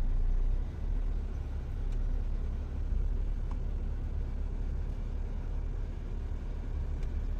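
Steady low rumble of a Honda Accord's engine and tyres heard from inside the cabin as it drives slowly.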